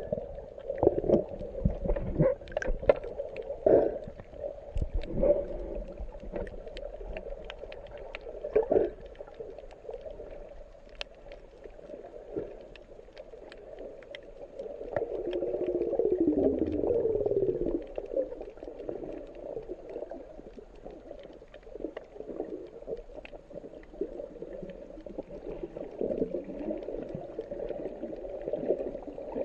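Underwater sound picked up through a camera's waterproof housing: a muffled, steady water hum, with a burst of knocks and clicks in the first several seconds and scattered sharp ticks after. About halfway through it swells louder for a few seconds, with a wavering pitch that slides down and back up.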